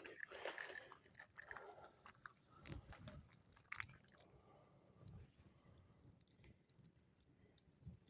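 Faint, irregular crackles and small pops, typical of a campfire burning, loudest in the first second or so.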